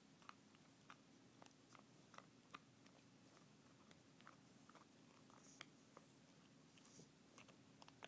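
English bulldog puppy chewing on a bottle cap: faint, irregular clicks and crunches of teeth on the cap, a few a second.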